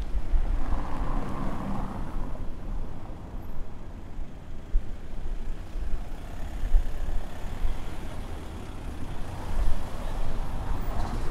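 City street traffic: cars driving past on the road, a constant low rumble that swells as vehicles pass, about a second in and again near the end.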